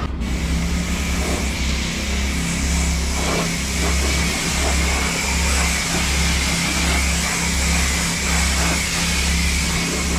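Pressure washer jet spraying water onto a car's body panels, a steady hiss of spray, with the washer's motor running underneath. This is the rinse that clears shampoo foam off the paint.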